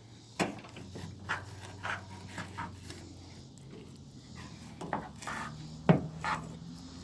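Fillet knife scraping and tapping on a cutting board while skinning a bass fillet, with scattered short scrapes and a few sharp knocks, the loudest near the end.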